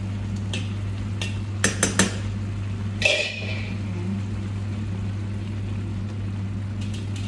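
A spoon stirring curry sauce in a stainless steel frying pan, with scattered knocks and clinks against the pan: three quick ones about two seconds in and a louder, briefly ringing clink at about three seconds. A steady low hum runs underneath.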